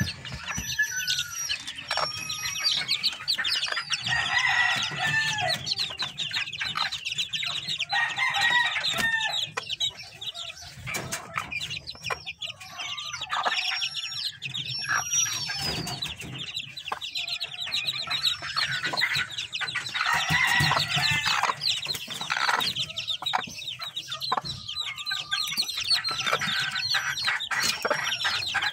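A brood of week-old chicks peeping continuously in short, high, falling chirps, while the mother hen clucks in short runs now and then.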